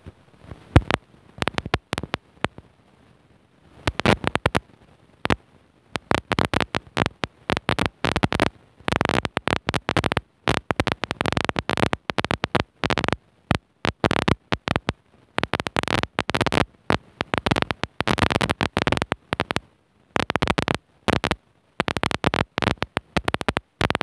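Harsh crackling noise in rapid, irregular bursts, broken by many brief dropouts to silence.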